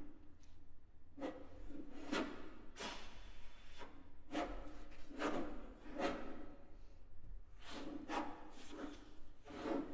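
Extended-technique sounds on a violin laid flat, with the player bent over it, mouth at the strings: a series of irregular noisy strokes, about one a second, each carrying a low hollow tone from the violin's body.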